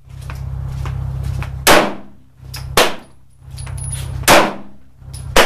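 Kriss Sphinx SDP 9mm semi-automatic pistol fired four times in slow single shots, about one to one and a half seconds apart, each a sharp crack with a short ring-out. A low rumble runs between the shots.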